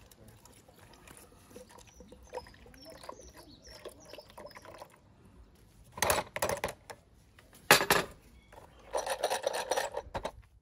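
Vinegar poured from a bottle into a plastic tub of small steel bicycle pedal parts. It starts as a faint trickle, then comes in three louder splashing gushes over the last few seconds.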